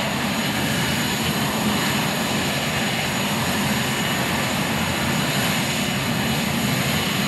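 Twin Williams FJ44 turbofans of a Cessna Citation CJ2+ running at low taxi thrust, a steady high whine over a low rumble as the jet rolls slowly along the runway.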